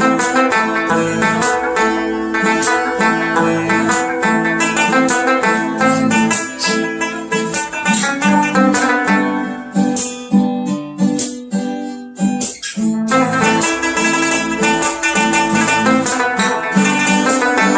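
Instrumental background music of fast plucked strings, led by acoustic guitar. It thins out about ten seconds in and fills back in some three seconds later.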